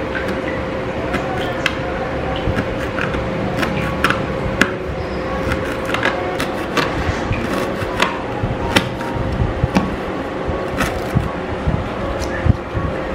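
Kitchen knife slicing green leaves on a plastic cutting board: irregular light taps of the blade against the board, over a steady faint hum.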